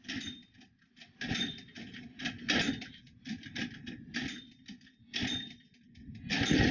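Honda 200cc go-kart engine being pull-started by its recoil cord, about one pull a second, six pulls in all, each a short whirring crank that dies away without the engine catching.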